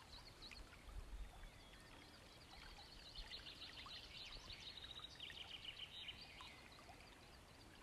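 Faint outdoor ambience: many quick high chirps over a low rumble.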